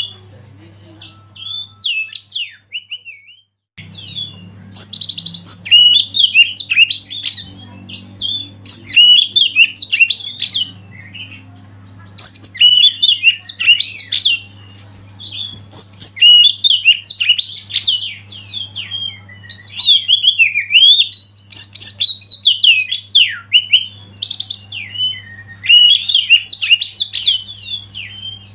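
Oriental magpie-robin (kacer) singing: loud bursts of rapid, varied whistled and warbled notes, each a second or two long, with short pauses between. A low steady hum runs underneath and drops out for about two seconds near the start.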